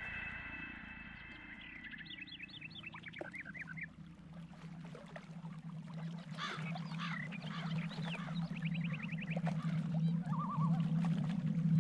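A flock of waterbirds calling in quick chattering runs of short high notes, over a low steady drone that grows louder in the second half.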